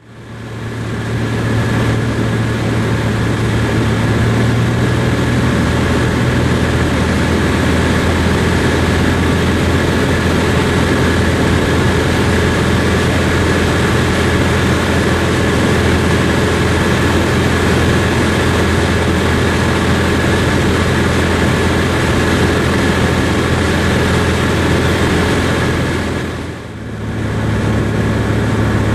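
Cessna R172K Hawk XP's six-cylinder Continental IO-360 engine and propeller giving a steady, even drone in flight. The sound dips briefly near the end, then comes back at the same steady pitch.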